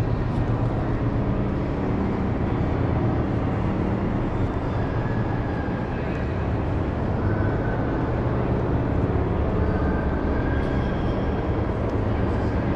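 Steady low rumble and mechanical hum of city background noise, with faint higher tones now and then.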